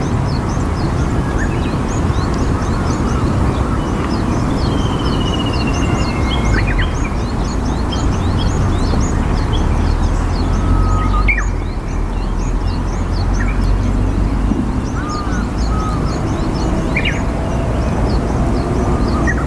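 Steady riverside rumble with many small birds chirping quickly and high throughout, and a few duck calls from eastern spot-billed ducks.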